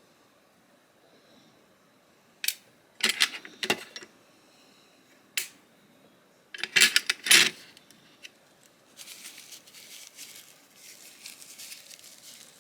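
Small metal knife parts and pivot bearings clicking and tapping as they are handled, a few single clicks and then a quick cluster. Near the end, a paper towel rubbing as the bearings are wiped clean.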